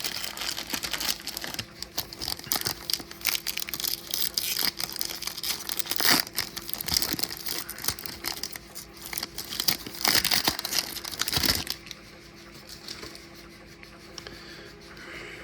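Plastic foil wrapper of a Topps baseball card pack crinkling and tearing open, with many sharp crackles. It dies down to faint rustling about twelve seconds in.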